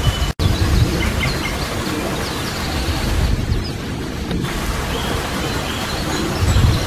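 Wind buffeting the microphone: a steady rushing noise with low gusty rumbles, and faint birds chirping now and then. The sound cuts out for an instant near the start.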